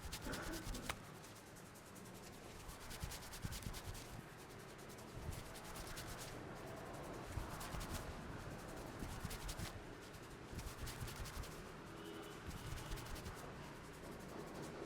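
Hands rubbing and working through hair on a scalp during a head massage. Repeated short bursts of fine crackling, every second or two, over a steady rustle.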